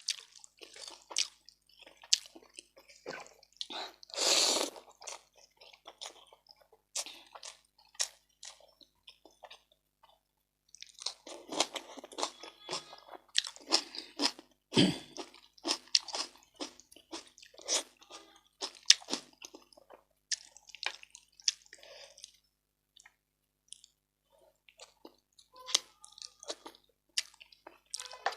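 Close-miked eating: a person chewing and crunching food with wet mouth clicks and smacks in irregular bursts. There is a longer, louder rush of sound about four seconds in, and a single low knock about halfway through.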